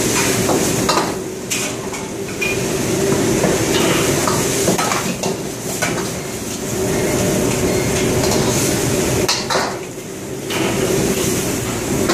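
A busy wok range: gas burners running with a steady noise under frequent clangs and scrapes of metal ladles against woks, and food sizzling in the pans.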